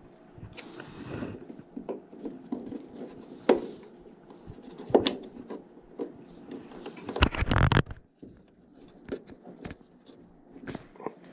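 Hand-work noises: scattered clicks, scrapes and knocks of tools and parts being handled, with a loud rattling burst about seven seconds in.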